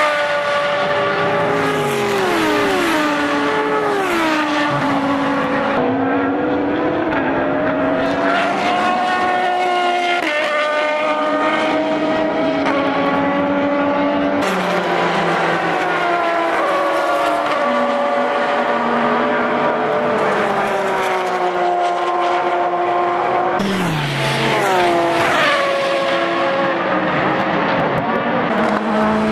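Lola-Aston Martin LMP1 race car's V12 engine at racing speed: several quick downshifts with the pitch stepping down, then pulling up through the gears with the pitch rising, over and over as it brakes for and powers out of corners.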